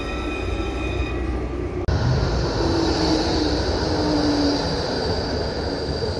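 Train running: a steady whine of several high tones over a low rumble, then, after a sudden cut about two seconds in, a steady rushing noise with a high hum and a low tone that sinks slightly.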